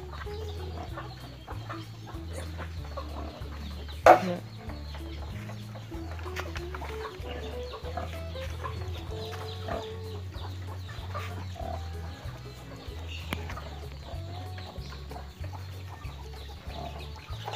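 Chickens clucking, with background music carrying a steady stepping bass underneath. One loud sharp knock stands out about four seconds in.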